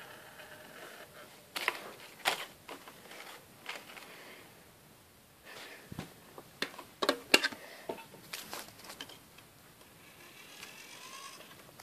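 Irregular clicks and knocks from objects being handled close to the microphone. They come in two clusters, with a quieter stretch between.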